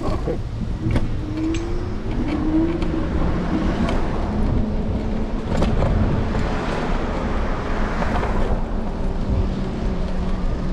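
City street traffic: a steady low rumble of vehicles, with one engine note rising in pitch about a second in as a car accelerates.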